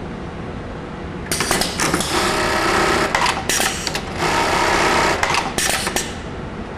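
Automatic belt-loop attaching machine built on a JUKI industrial sewing head, stitching in loud rapid runs with brief pauses from about a second in until near the end, over a steady machine hum.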